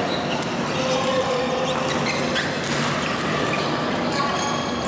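Busy badminton hall ambience: a steady din of play on neighbouring courts, with scattered racket hits on shuttlecocks and short shoe squeaks on the court floor.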